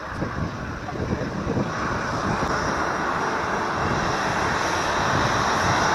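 Boeing 737-800's CFM56 jet engines running at taxi power as the airliner rolls along the runway toward the microphone, growing steadily louder, with a high fan whine coming in about two seconds in.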